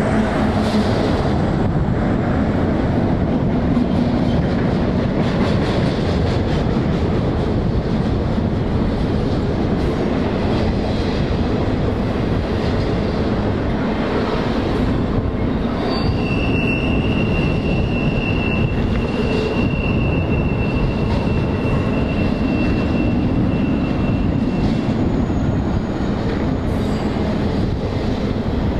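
Freight train rolling past with a steady, loud rumble of wheels on rail. About halfway through, a single high-pitched wheel squeal sets in and holds for about eight seconds.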